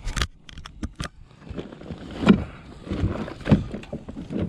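Handling noises as a bass is landed in a plastic fishing kayak: a quick run of sharp clicks in the first second, then scattered knocks and two heavier dull thumps about a second apart.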